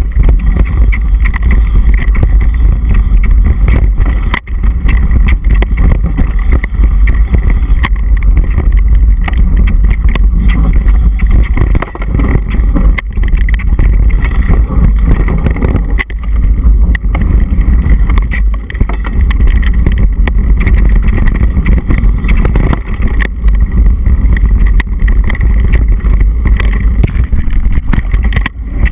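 Wind rushing over an action camera's microphone as a mountain bike descends a dirt singletrack fast: a loud, steady low rumble. Brief knocks and rattles come through as the bike runs over rough ground.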